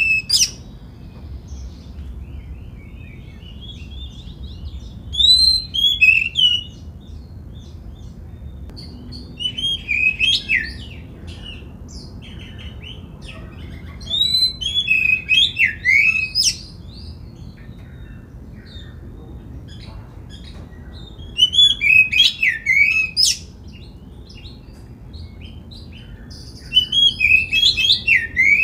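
Oriental magpie-robin singing: five loud phrases of quick, sweeping whistled notes mixed with sharp clicks, one every four to six seconds, with softer chattering notes in between.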